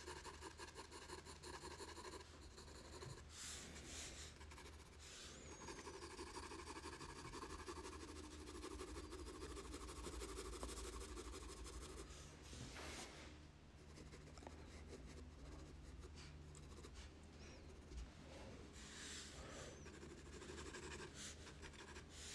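Faint scratching of a 4B graphite pencil stroking across sulphite paper as a drawing is sketched and shaded.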